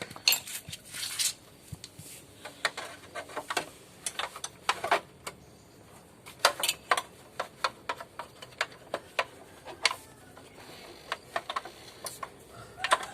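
Hand tools clicking and clinking against metal motorcycle parts in irregular sharp ticks, some in quick clusters, as the old horn is being unbolted.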